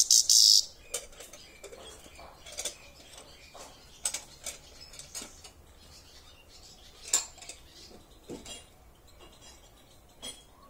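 A caged grey-headed goldfinch gives a short, loud, high-pitched chirp right at the start. After it come scattered sharp clicks and light taps, about one every second or so.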